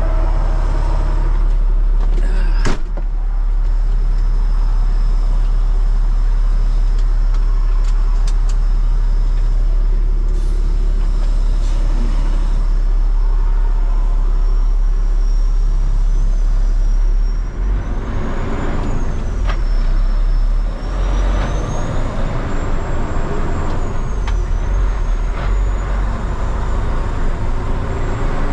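Diesel engine of a Peterbilt 389X heavy tow truck heard from inside the cab, a steady deep rumble, as it gets under way with a dump truck in tow. A single thump about three seconds in. In the second half the engine works harder, dipping briefly twice, and a thin high whine wavers up and down.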